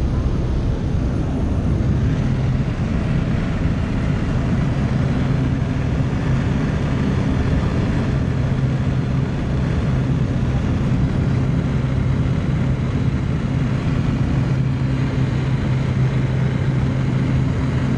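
Single-engine high-wing propeller plane running at takeoff power, heard from inside the cabin: a loud, steady drone as it lifts off and climbs.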